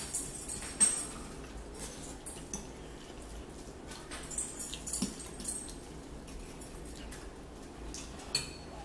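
A fork clinking and scraping against a ceramic bowl as ramen noodles are twirled and lifted, in scattered light strokes with a sharper clink about a second in and another near the end, along with the sounds of chewing.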